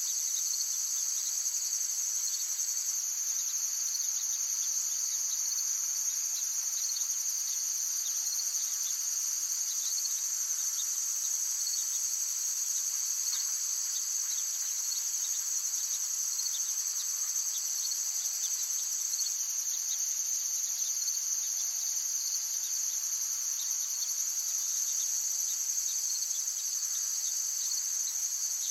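Dense, continuous insect chorus: a steady high-pitched trilling in two bands that does not let up, with faint rapid ticking mixed in.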